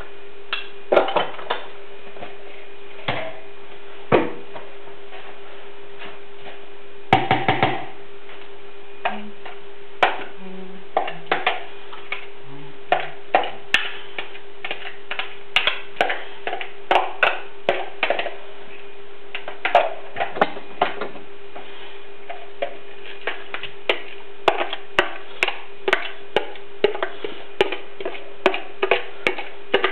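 A spoon clicking and knocking against a bowl as chopped ingredients are stirred and then scraped into a pot. The taps are irregular and short and come more often after the first third, over a steady hum.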